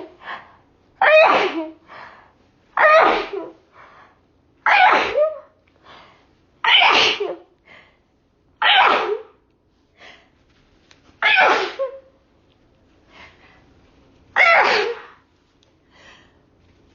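A woman sneezing loudly again and again, seven sneezes two to three seconds apart with short breaths in between. The sneezes are set off by chhinkni, an Indian sneezing powder, sniffed up the nose.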